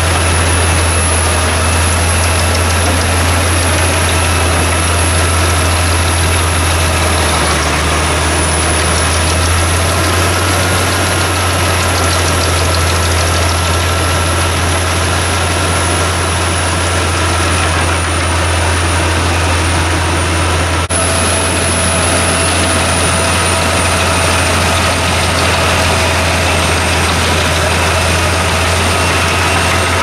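Albach Diamant wood chipper with an 850 HP engine, running under load while it chips wood and blows the chips out of its discharge spout: a loud, steady low drone with a thin high whine. A brief click comes about two-thirds of the way through.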